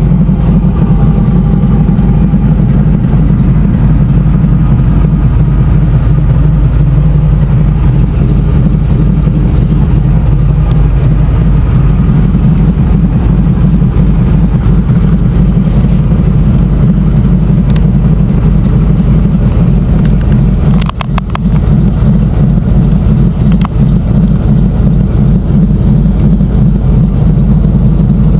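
De Havilland DHC-2 Beaver's nine-cylinder Pratt & Whitney R-985 radial engine and propeller running steadily at high power through the takeoff from the water and the climb, heard loud inside the cockpit. The sound dips briefly, with a few clicks, about three-quarters of the way through.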